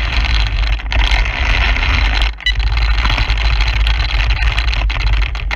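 Heavy wind buffeting and road rumble on a GoPro riding a 1717 Arrma Typhon RC drag car at speed: a steady noise with no clear pitch and a deep rumble, which dips briefly a little over two seconds in.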